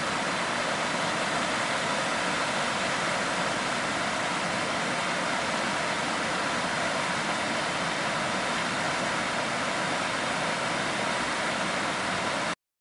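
Floodwater pouring over a dam's overflow spillway: a steady rush of falling water that stops abruptly near the end.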